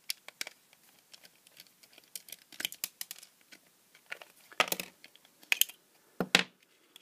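Hands and a small screwdriver handling the plastic casing of a battery-powered LED party light: a run of light clicks and scrapes, then several louder plastic clacks in the second half as the battery compartment is opened and AA batteries are pulled out.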